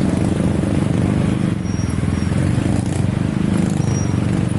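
Engine running steadily at close range, with a fast even pulse.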